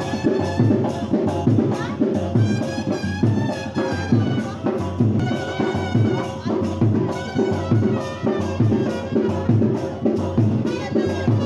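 Brass wedding band (band party) playing in the street: a brass melody over a steady drum beat.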